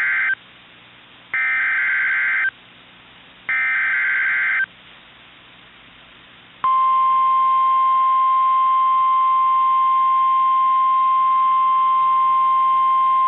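Emergency Alert System SAME header: the end of one loud digital data burst and then two more, each about a second long with a second's pause between. About two-thirds of the way through, the NOAA Weather Radio 1050 Hz warning alarm starts: one loud, steady tone that keeps going.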